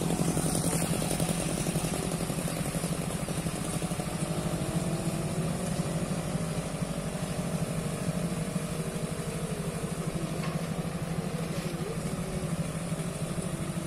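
Tractor and motorcycle engines running steadily at low speed, a continuous low throb.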